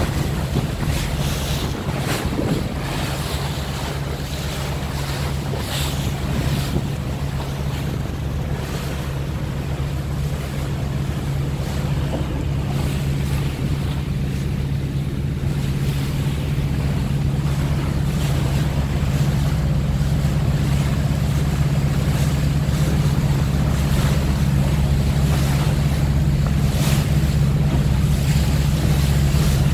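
Water bus engine running steadily underway, a constant low drone, with water rushing past the hull and wind gusting on the microphone.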